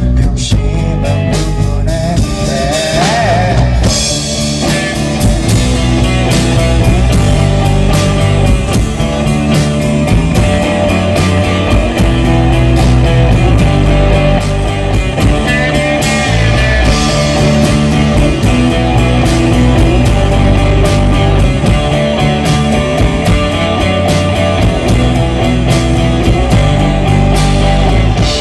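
Live rock band playing amplified: electric guitars, bass guitar and a drum kit keep up a steady beat throughout.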